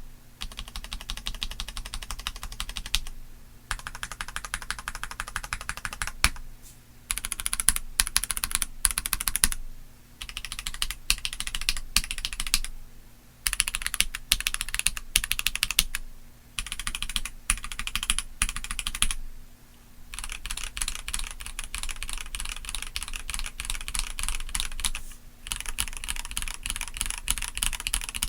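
Typing on a stock Keychron C3 Pro gasket-mounted tenkeyless mechanical keyboard: fast runs of keystrokes broken by brief pauses every few seconds.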